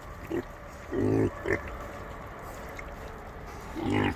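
Young pigs grunting as they eat feed scattered in mud: a few short grunts, the strongest about a second in and another near the end.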